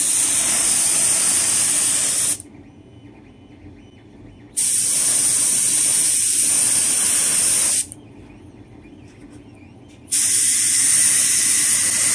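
Paint being sprayed onto a 3D-printed prop part: three hissing bursts of spray, each two to three seconds long, with short pauses between them.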